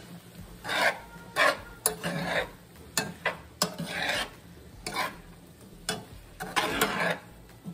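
A utensil stirring chicken, shrimp and bell peppers as they fry in a large nonstick skillet, in repeated scraping sweeps through the sizzling food. A few sharp clicks are the utensil striking the pan.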